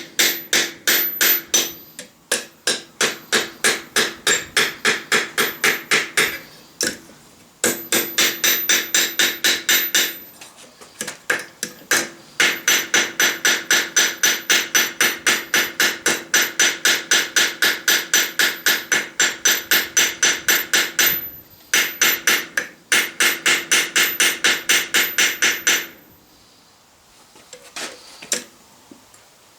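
Hand hammer forging steel on an anvil: quick, ringing metal strikes about three or four a second, in several runs with short pauses between them. The hammering stops a few seconds before the end.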